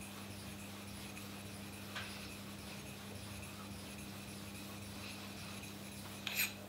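Faint rubbing of a steel hair-clipper blade slid back and forth on a wet 3000-grit Naniwa Chosera waterstone, polishing the blade's flat cutting face, over a steady low hum. A short, sharper scrape or click comes near the end.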